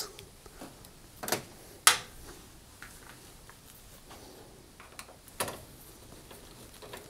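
Scattered small clicks and taps of a screwdriver working out the screws along the top of a cooker's metal control panel, with one sharper click about two seconds in and a few fainter ones later.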